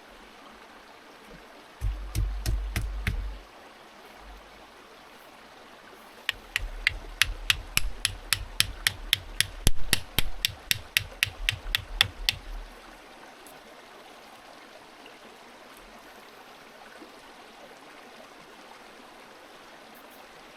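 Steady flowing stream in the background. Over it come a few dull thuds, then a quick run of about two dozen sharp knocks at roughly four a second, which stop a little past the middle.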